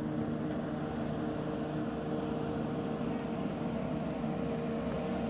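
A steady mechanical drone holding several fixed pitches over a low rumble.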